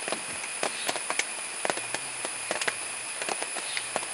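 Elephants tearing up and munching grass and greens: a run of irregular crackling snaps, several a second, over a steady high background drone.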